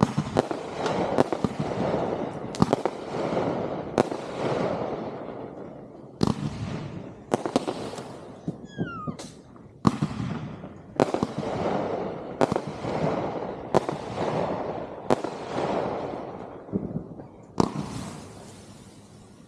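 Consumer aerial fireworks bursting in quick succession, a sharp bang every second or two, each followed by a rumbling, crackling tail. A brief falling whistle sounds about nine seconds in, and the barrage dies away near the end.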